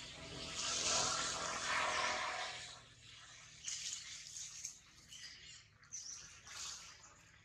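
Outdoor ambience: a loud rushing noise swells and fades over the first three seconds, then scattered short, high bird chirps.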